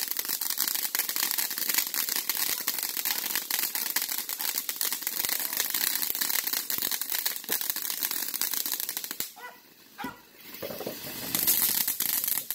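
Ground fountain fireworks hissing and crackling with dense, rapid pops. About nine seconds in it dies away briefly, then a fresh fountain starts up louder near the end.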